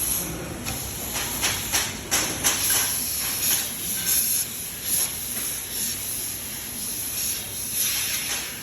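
3D tube-cutting machine cutting box-section tubing: a steady hiss of the cutting torch and gas, with short louder bursts now and then.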